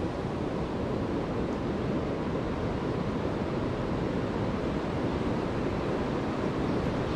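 Fast river current rushing steadily, a constant even roar of moving water.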